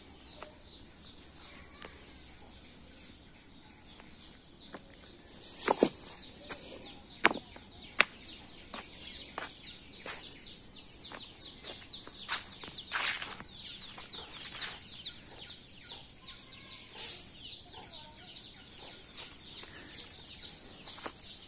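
Rural outdoor ambience: insects drone steadily at a high pitch, and birds call in rapid, repeated downward chirps through the middle. A few sharp snaps or knocks about six to eight seconds in are the loudest sounds.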